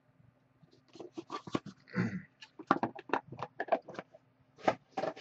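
Trading-card packaging being handled and opened by hand: a quick run of crinkles, clicks and light taps as the pack is unwrapped and the cards are taken out.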